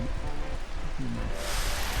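Mountain stream water rushing steadily, with a short stretch of voice at the start and again about a second in.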